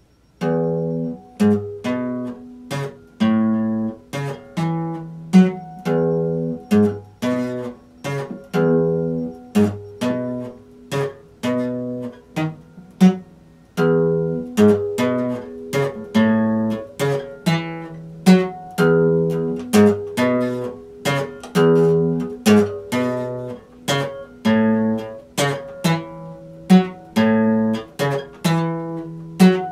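Epiphone acoustic guitar played solo, starting a moment in: a steady rhythm of chords with sharp attacks, about two a second.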